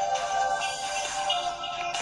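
A mobile phone ringtone melody playing. A held note fades within the first half second, then softer notes follow.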